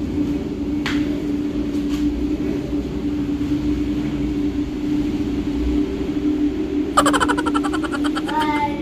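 Toy remote-control monster truck's electric motor whining steadily, with a burst of rapid clattering from its gears and wheels about seven seconds in.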